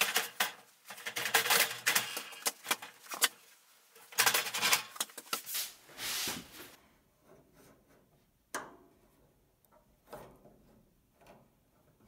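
Rapid clicking and clattering of hands and tools working on the fittings of a propane wall heater, busiest for the first five seconds, then only a few separate clicks and knocks.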